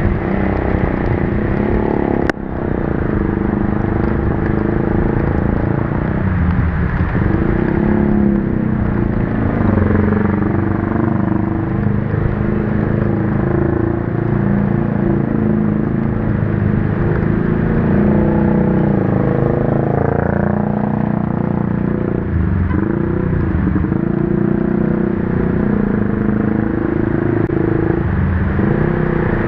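Motorcycle ridden through heavy rain: its engine running, the pitch drifting up and down with speed, over a steady noise of rain and wind. A single sharp click about two seconds in.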